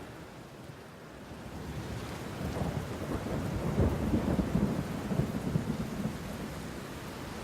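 A deep, rolling rumble swells over a couple of seconds, peaks about four seconds in, then eases off, over a steady rain-like hiss.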